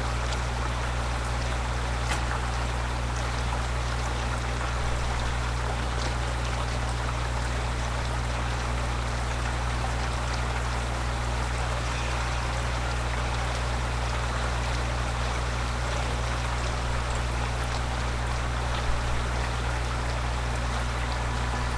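Steady rain pouring down as an even hiss, with a constant low hum underneath.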